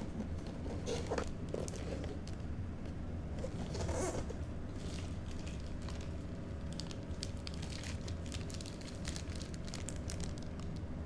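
Unboxing handling: the cardboard box is shifted, then a clear plastic bag holding a charger and USB cable is handled. It crinkles in many short crackles from about halfway through, over a steady low hum.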